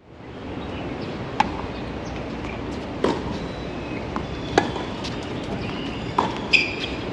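A tennis rally on an outdoor hard court: sharp pops of balls struck by rackets and bouncing, about every second and a half, over a steady outdoor hum.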